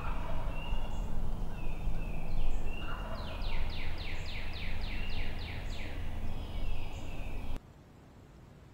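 A wild turkey gobbler gobbling, with songbirds singing quick runs of repeated notes over a steady low rumble. The sound drops away abruptly near the end.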